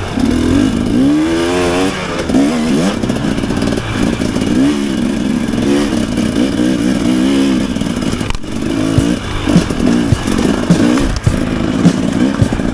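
Off-road dirt bike engine revving up and dropping back again and again as it is ridden over a forest trail, with short sharp knocks and clatter in the second half.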